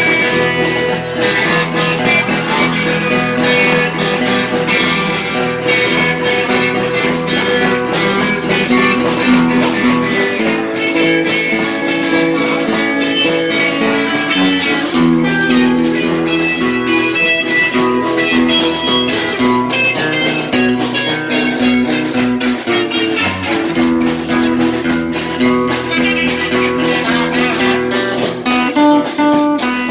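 Two guitars playing together live, a strummed acoustic-electric and an electric, in a steady instrumental jam with no singing.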